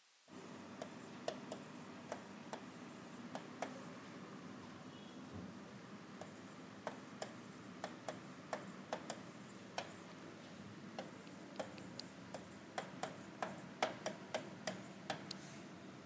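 Writing by hand: many irregular, faint, sharp taps and clicks of the writing tool, over a steady low room hum.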